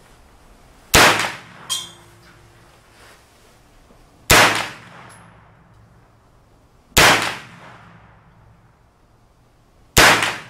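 CMMG MK9T 9mm AR-style carbine firing four single shots, about three seconds apart, each with a short echoing tail. A lighter metallic clink follows soon after the first shot.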